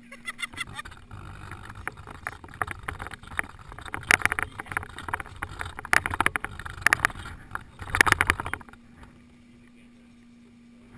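Rattling, knocking and scraping of a camera being moved quickly over grass and rough ground, with a low rumble, loudest in several bursts in the second half. It stops suddenly near the end, leaving a steady low hum.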